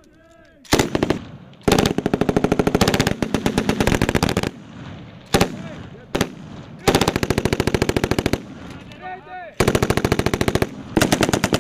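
Belt-fed machine gun firing about seven bursts. One long burst of nearly three seconds comes near the start, followed by shorter bursts and a couple of very brief ones of only a few rounds, with short pauses between.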